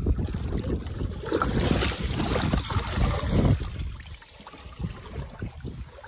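Shallow stream water sloshing and splashing as someone wades and moves through it, with a run of low thuds and rustles, loudest in the first three seconds and easing off after about four seconds.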